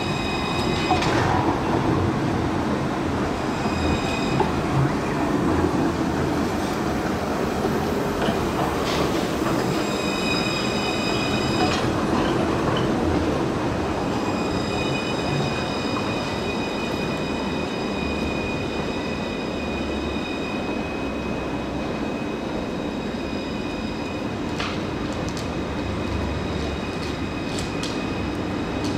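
Alstom Citadis trams running through a curve on street track, their wheels squealing in high thin whines that come and go, longest through the second half, over a steady low running rumble.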